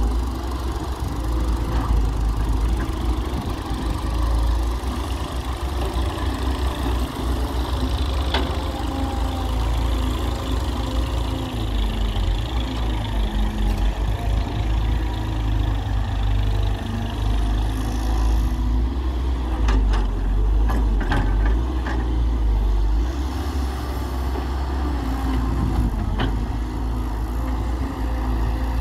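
Diesel engines of a Hyundai Robex 1300W wheeled excavator and a farm tractor running, the excavator's engine rising and falling with load as it digs and swings. A few sharp knocks come about two-thirds through and once more near the end.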